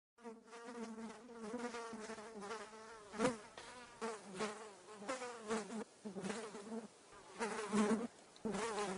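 A fly buzzing in flight, a steady droning hum that wavers in pitch and grows louder and softer as it passes close and moves away. It starts just after the opening.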